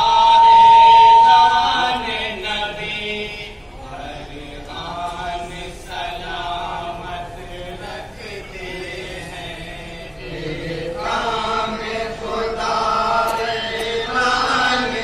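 A group of men reciting a naat in chorus through a PA microphone, their voices chanting together in unison. The chanting is loudest in the first two seconds, falls quieter through the middle, and swells again near the end.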